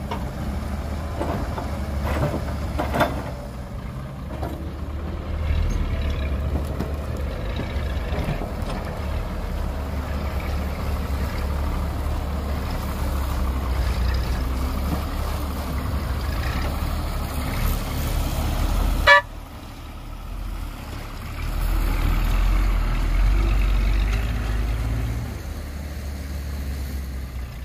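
Heavy diesel engine of construction machinery, an excavator or dump truck, running under load with a strong low engine sound that swells and eases. A sharp click comes about 19 seconds in, the level dips briefly, then the engine works harder again a few seconds later.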